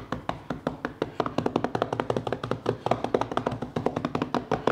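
Flat hands rapidly slapping and patting rolled-out cinnamon roll dough spread with butter and cinnamon-sugar filling, several quick slaps a second, pressing the filling into the dough.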